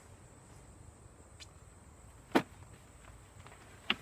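A single sharp knock a little past halfway, with a weaker click before it and another near the end, over a faint steady high drone of insects.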